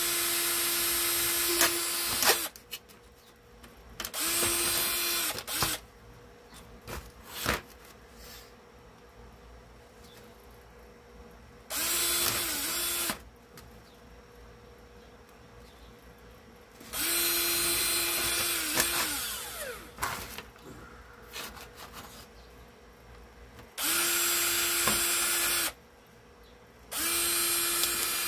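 Electric drill boring holes through, run in six short bursts of one to two and a half seconds each, the motor spinning up and winding down each time, with short pauses between.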